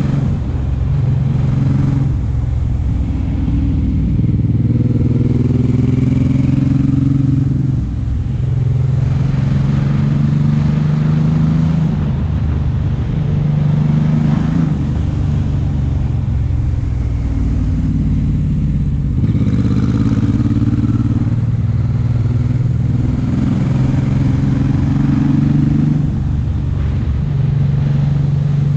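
Suzuki M109R's 1783 cc V-twin engine running under way, its pitch rising and dipping several times with throttle and gear changes.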